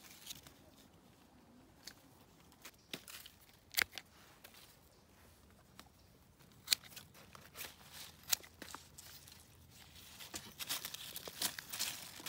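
Hand pruning shears snipping through willow stems: a few sharp clicks several seconds apart, then rustling and crackling of the cut stems and leaves being handled near the end.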